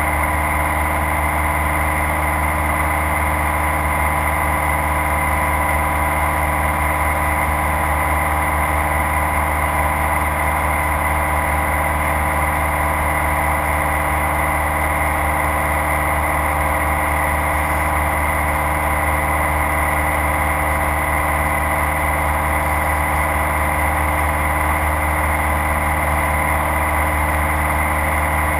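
Single-engine light aircraft's engine and propeller running steadily at constant pitch in level flight, heard inside the cabin.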